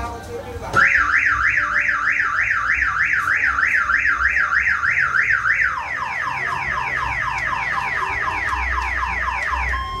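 Car alarm siren. About a second in it starts wailing up and down about three times a second, then switches to a faster run of falling chirps that stops just before the end.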